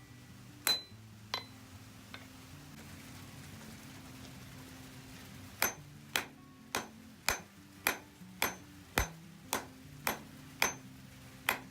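Hand hammer striking hot steel bar stock on an anvil. Two blows, a pause of about four seconds, then a steady run of blows about twice a second, each with a short ring. These are half-on, half-off blows at the anvil edge, setting a shoulder. Soft background music underneath.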